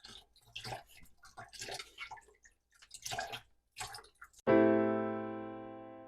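Blended mango-carrot juice splashing and dripping in irregular bursts as it is poured through a strainer. About four and a half seconds in, a single electric-piano chord strikes and fades away.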